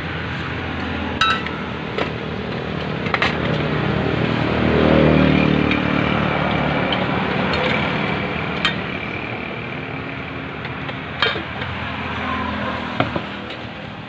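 A metal spoon clinks sharply against a stainless steel basin and plate several times while stew is scooped out. Underneath is a steady rumble of traffic that swells about five seconds in.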